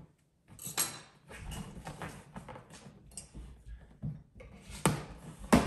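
Cardboard box being opened by hand: scraping and rustling of cardboard and packaging with scattered clicks, and two sharper knocks near the end.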